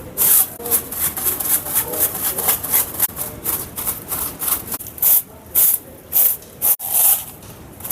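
A grooming tool scraping over a horse in quick rhythmic strokes, about two or three a second.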